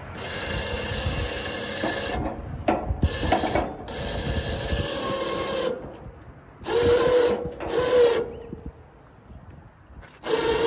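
Crane winch hauling a wrecked shopping cart up the side of a bridge, running in stop-start bursts of whirring and scraping, with a wavering squeal in some bursts.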